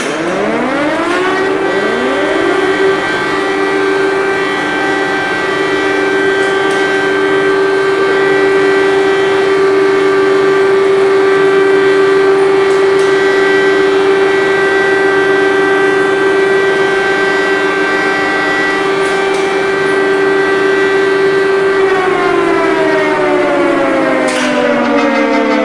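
Civil defense sirens winding up a moment apart into one long steady wail, then starting to wind down near the end.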